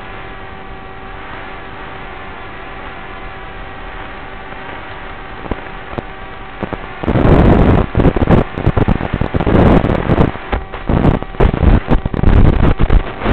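Walkera Rodeo 110 racing quadcopter's motors and propellers, heard from on board: a steady multi-tone whine at first. About seven seconds in this gives way to loud, ragged thrashing and batting as the quad runs into tall grass and its guarded propellers chop and brush through the blades.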